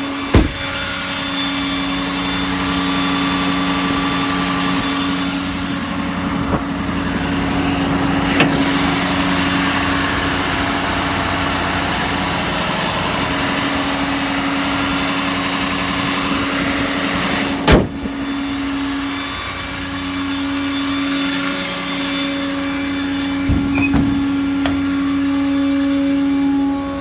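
Ford 6.7 Power Stroke V8 turbodiesel idling steadily, with a few sharp knocks over it, the loudest about eighteen seconds in.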